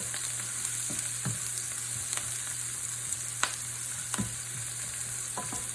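Onions sizzling in hot oil in a pot as they brown toward golden, with a steady hiss and a spoon knocking and scraping against the pot now and then as they are stirred.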